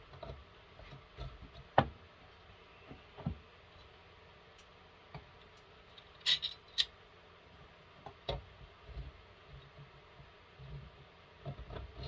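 Scattered clicks and knocks of metal parts being handled as a chainsaw bar and chain are fitted onto the saw's bar studs, with a sharp clatter of light clicks about six seconds in.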